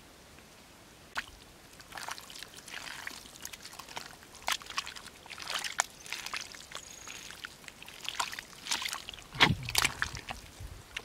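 Hands working through thick wet mud and muddy water: irregular squelches, slops and splats that begin about a second in, with the loudest, heaviest slop about nine seconds in.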